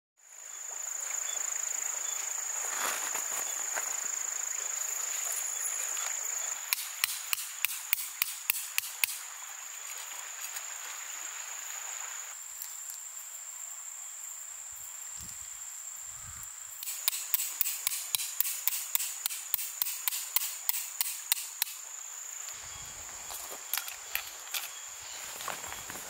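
Summer forest ambience dominated by insects: a steady high-pitched buzzing drone, with two runs of rapid pulsed ticking, about four or five a second, about seven seconds in and again from about seventeen seconds in. The sound fades in at the start.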